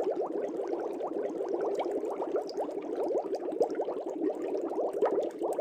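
Air bubbles bubbling steadily up through aquarium water: a dense stream of small, quick bubble sounds, each with a slight upward pitch.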